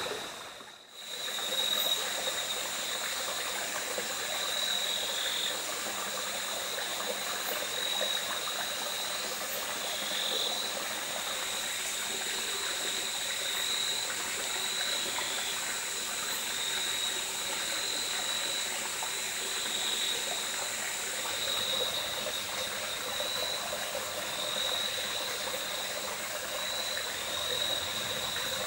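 Mountain stream running steadily at night, with a continuous high-pitched chorus of calling night animals over it.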